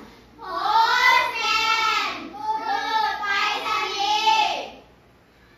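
Children's voices singing a song, then stopping shortly before the end.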